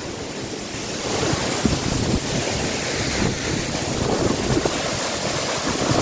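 Waterfall crashing onto rocks at its foot: a steady, heavy rush of falling water, growing louder about a second in.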